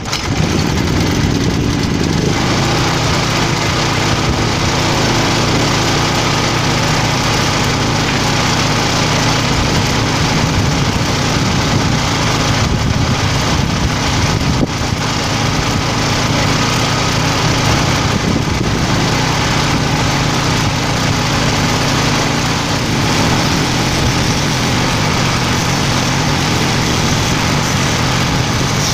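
Small petrol generator engine running steadily.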